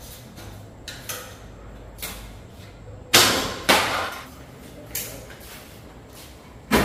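A series of sharp knocks or blows at uneven intervals, about seven in all. The loudest are a pair about half a second apart near the middle and another near the end, each dying away quickly.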